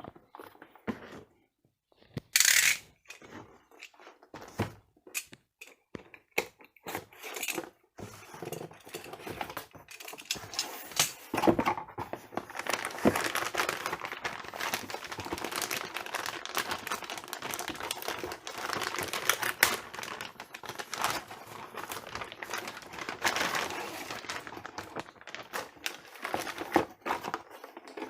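Cardboard box and plastic wrapping being opened and handled. There are scattered clicks and taps, a short loud rip about two and a half seconds in, then continuous crinkling and rustling from about eight seconds on.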